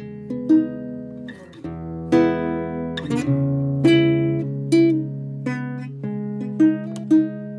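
Background music: a plucked guitar picking notes at an easy pace, about two a second, over held bass notes.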